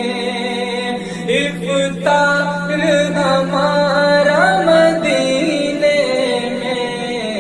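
Islamic devotional naat singing: a solo voice sings a long, ornamented line over a steady low drone.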